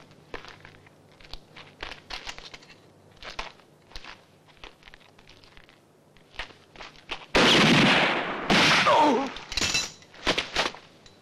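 Film-soundtrack gunfire. Faint scattered taps and clicks give way about seven and a half seconds in to two loud gunshots, the second followed by a falling whine. A few quicker, sharper shots come near the end.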